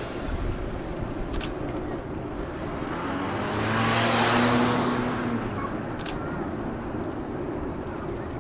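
A motor vehicle passes, its engine hum swelling and fading again about four seconds in, over steady outdoor wind and water noise.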